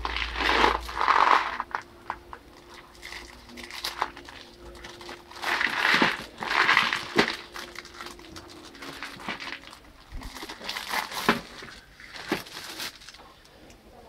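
Plastic shrink wrap crinkling as it is peeled off a clear plastic compartment box of crimp terminals, in three bursts, with sharp clicks and taps from the box being handled in between.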